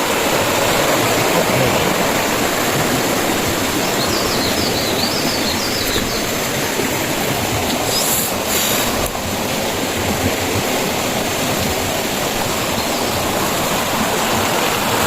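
Rushing river water, a steady loud noise that does not let up, with a brief high chirping about four seconds in.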